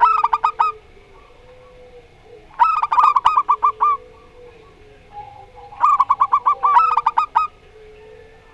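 Zebra doves (perkutut) singing in three bursts of rapid staccato coos: one at the start, one about two and a half seconds in, and one about six seconds in. A faint, low, drawn-out tone runs beneath them.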